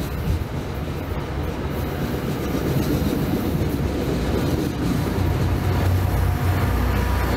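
Stainless-steel commuter train coaches rolling past close by, a steady rumble of wheels on the rails that grows louder about halfway through. Near the end the low engine note of the trailing diesel locomotive builds as it approaches.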